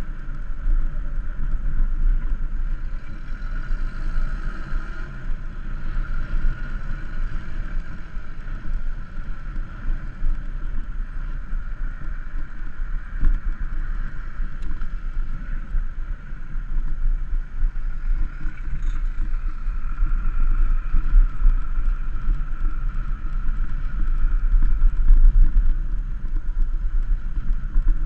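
Wind rushing over the microphone of a camera riding on a moving bicycle, a steady low rumble with a fainter steady hum above it.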